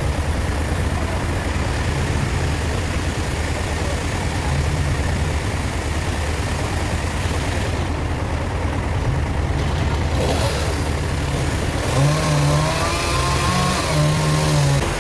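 A heavy engine running with a steady low rumble; near the end it takes on a pitched whine that rises and falls, as if revving.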